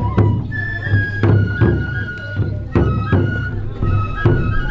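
Japanese festival music: a bamboo transverse flute (fue) playing a melody of held high notes over steady taiko drum beats, about two to three strikes a second.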